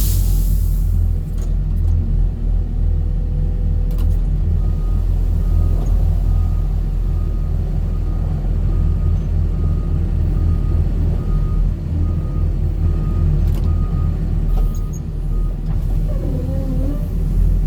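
Heavy diesel machine engine running steadily with a deep low rumble, while a backup alarm beeps about twice a second through the middle of the stretch and then stops.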